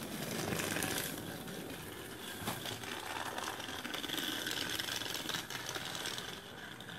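Battery-powered TrackMaster Timothy toy train running on its plastic track: the small geared motor whirs with a fast, steady mechanical clicking.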